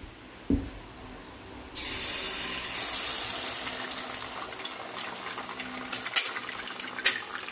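A low thump, then about two seconds in a raw egg slid into hot oil in a frying pan starts sizzling, a sudden loud hiss that keeps on steadily, with a few sharp clicks near the end.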